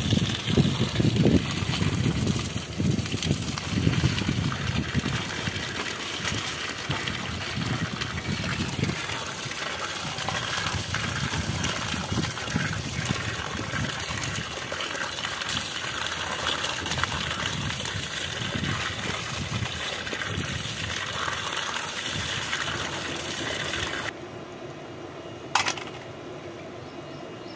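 A stream of water pouring and splashing over raw mutton pieces in a plastic colander, as they are rubbed and rinsed by hand, the splashing heaviest at first. Near the end the water sound stops, followed by a single sharp tap.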